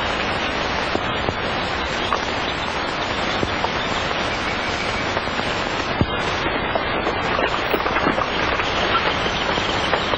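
Steady hiss and crackle of a worn 1940s film soundtrack, with a few sharp clicks.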